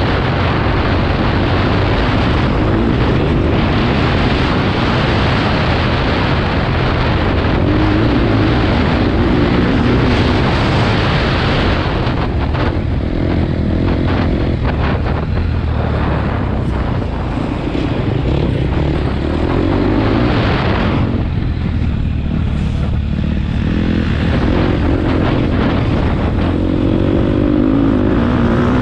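Motocross bike engine heard from on the bike, revving up and down as the rider works the throttle. About three-quarters of the way through it eases off briefly, then pulls hard again.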